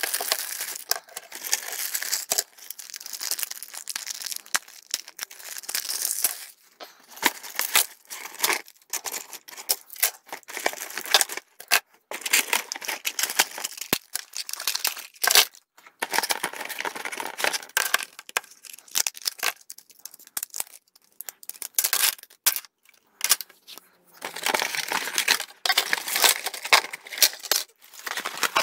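Clear plastic packaging bags crinkling and rustling as toy trains are unwrapped and handled, sped up with the fast-motion footage. The sound comes in choppy bursts broken by short gaps.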